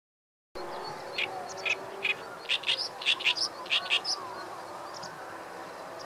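Great reed warbler singing: a run of short, loud chattering notes from about one to four seconds in, then a pause.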